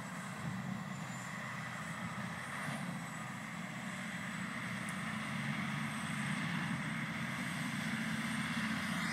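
John Deere 9630 four-wheel-drive tractor's diesel engine pulling two loaded earthmoving scrapers, a steady drone that grows slowly louder.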